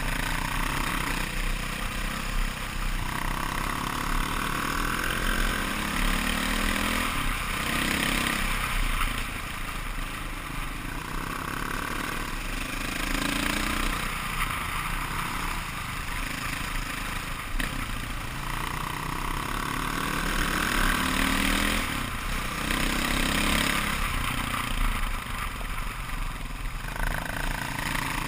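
KTM 530 EXC's single-cylinder four-stroke engine under way on a gravel trail, its pitch climbing again and again as the rider opens the throttle and shifts up. A steady rush of road and wind noise runs underneath.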